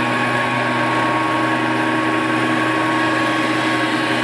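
Large surface grinder running, its grinding wheel spinning and table traversing under a spray of fresh coolant emulsion: a steady hum with several steady tones over a continuous rush. The wheel is being brought down but is not yet touching the work.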